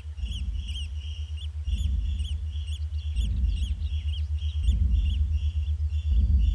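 Night animal calls: a short high chirp repeated two to three times a second, over low pulsed calls that come about every one and a half seconds and grow louder.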